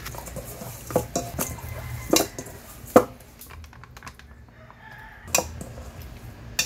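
Stainless steel mixing bowl knocking and clinking as raw pork is handled and marinated in it, about six sharp knocks, the loudest about three seconds in.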